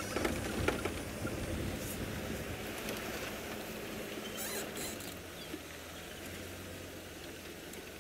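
Open safari vehicle rolling slowly along a dirt track, its engine running low under a rumble of tyres on the track. The sound grows quieter and settles about halfway through into a steady low engine hum.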